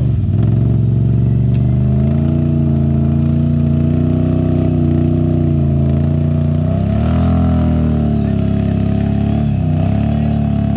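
ATV engine running steadily under load, its pitch dipping and climbing back a few times: just after the start, about seven seconds in, and again near the end.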